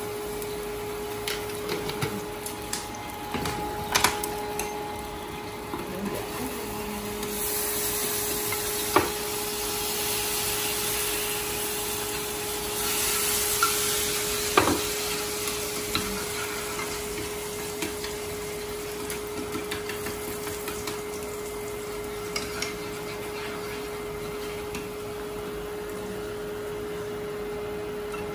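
Chicken pieces frying in hot oil in a pan. The sizzle swells twice as pieces go in and are turned, and long chopsticks click sharply against the pan a few times. A steady hum runs underneath.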